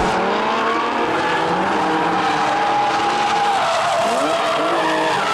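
Drift cars' engines revving hard, their pitch rising and falling, with tyres squealing and skidding in a long screech.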